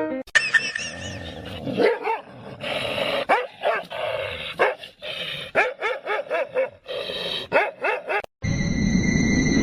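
A dog barking and yipping in a rapid string of short, pitched calls. About eight seconds in it cuts off abruptly, and steady tones over a hiss take over.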